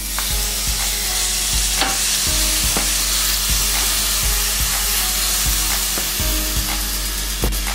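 Minced garlic sizzling in hot olive oil and cumin in a stainless steel pan; the sizzle starts as the garlic hits the oil. A wooden spoon stirs it, scraping and knocking on the pan now and then.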